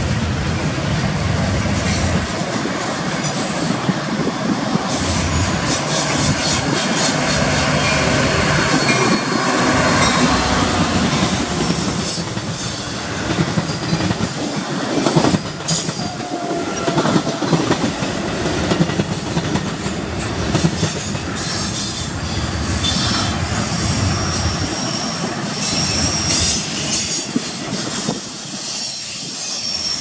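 Double-stack intermodal freight train rolling past, loud and steady, with wheels clicking over rail joints and high-pitched wheel squeal. Through the middle, a Metra commuter train of bilevel gallery cars also rolls by on the nearer track. There is a sharp knock about 15 seconds in.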